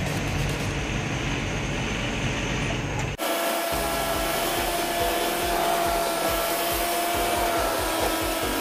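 Truck cab noise on the move: a steady rumble of engine and road. About three seconds in it cuts off abruptly and gives way to a steady whooshing rush with held tones and low pulses that quicken toward the end.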